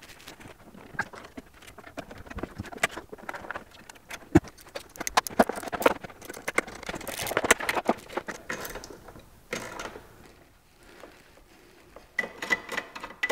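Screwdriver, nut driver and small mounting hardware clicking, rattling and scraping against a plastic hard case while a DC-to-DC charger is screwed in. There is a dense run of clicks and scraping in the middle, a short lull, then a few more clicks near the end.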